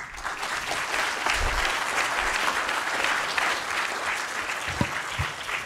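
Audience applauding, starting at once and dying down near the end.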